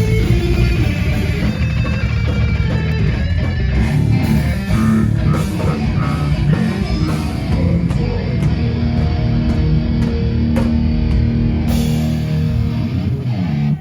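Heavy metal band playing live: loud distorted electric guitars and a drum kit, stopping suddenly at the end of the song.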